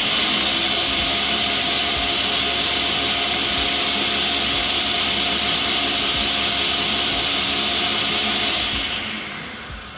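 Countertop blender running steadily at high speed, puréeing chopped fresh herbs, scallions and peppers with a little water into green seasoning. Its motor spins down near the end.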